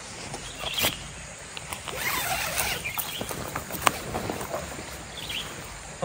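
Camping gear and bags being handled and shifted: rustling with a few sharp clicks and knocks, the loudest about four seconds in, over the steady rush of a forest stream.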